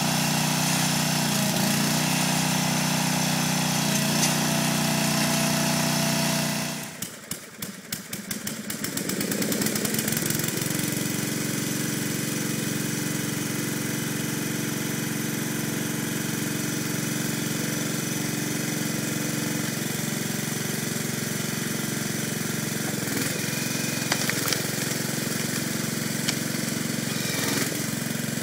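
Small gas engine driving the hydraulic pump of a homemade log splitter, running steadily. About seven seconds in the sound dips sharply and then picks back up to a steady run with the engine speed turned down a little, with a few faint knocks near the end.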